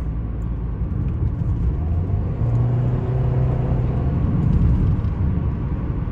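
Inside the cabin of an Audi A4 with a 2.0 TFSI four-cylinder running on petrol mixed with used engine oil, cruising: steady engine drone and road rumble, with a low hum swelling for about a second and a half a little after two seconds in. The engine is in limp mode with the EPC light on.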